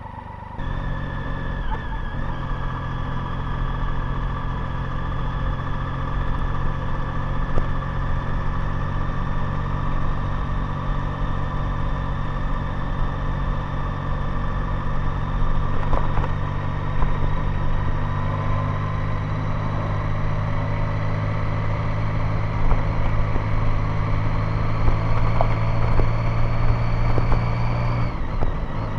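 Motorcycle engine running steadily under way, growing louder about half a second in and slowly rising in pitch, with a brief drop and pick-up near the end.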